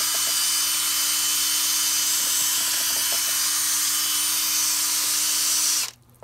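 Cordless drill spinning a mixing rod in a bucket of clay slip, stirring in sand temper, running at a steady speed with an even whine, then stopping abruptly near the end.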